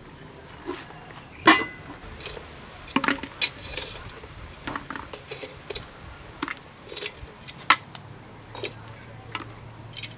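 Metal pot and long metal tongs being handled around a clay charcoal stove: a scattered series of sharp clinks and knocks. The loudest comes about a second and a half in.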